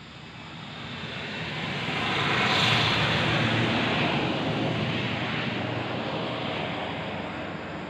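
Rushing noise of a passing vehicle, swelling to its loudest about three seconds in and then slowly fading.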